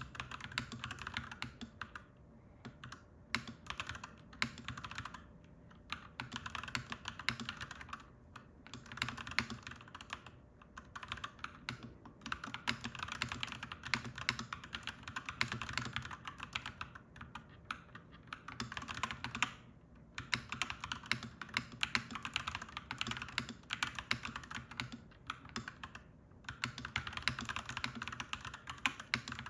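Typing on a clacky mechanical keyboard: runs of quick key clacks broken by short pauses every few seconds, over a faint steady low hum.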